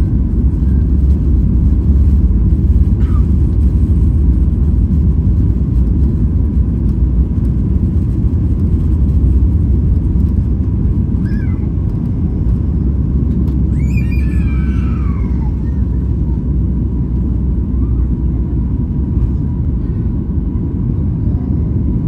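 Steady low rumble of a Boeing 737 MAX 8's passenger cabin under way, the drone of engines and airflow. Twice partway through, a brief high, falling cry, like a small child's voice, rises above it.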